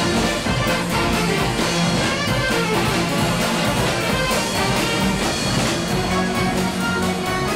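A Mummers string band of saxophones, banjos, accordions and string bass playing a lively marching tune, loud and unbroken.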